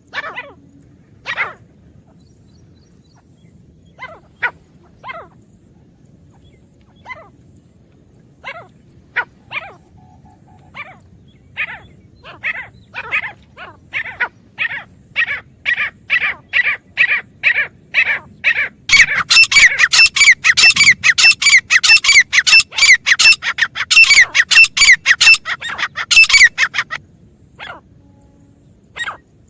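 Grey francolin calling: sharp, high repeated notes, scattered at first, then quickening into a fast, loud run of calls in the last third that stops shortly before the end.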